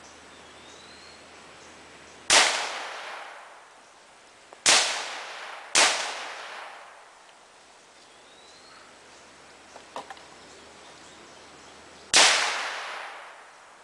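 Four gunshots, each with a long echoing decay: one about two seconds in, a pair a second apart near the middle, and one near the end. A couple of faint ticks fall between them.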